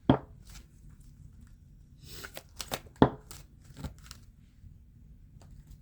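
Oracle cards being shuffled and handled, with soft rustling and two sharp card snaps, one just after the start and a louder one about three seconds in.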